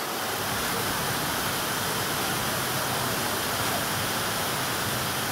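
Small artificial waterfall pouring steadily over rocks, an even rushing of falling water.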